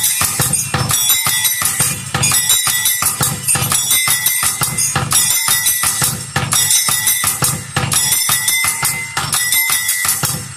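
A bell device that makes several sounds at once, playing a fast, even rhythm of drum-like beats mixed with jingling bells and a steady high ringing tone.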